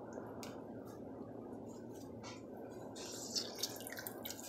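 A pot of water heating on the stove with a steady low hiss, and lemon juice dripping and splashing into it. Two sharper plops come a little after three seconds.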